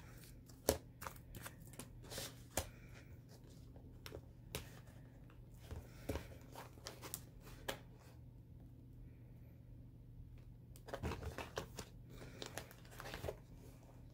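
Faint handling noise of two coated-canvas wallets being turned over and squeezed together in the hands over a wooden table: scattered small clicks, taps and rustles, busier near the end.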